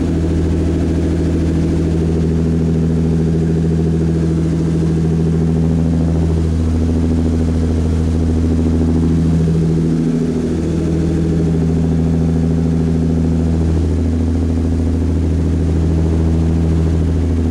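The engines of an 85-foot deep-sea fishing boat running steadily at cruising speed: an even, deep drone with slowly wavering tones, over the rush of the churning wake.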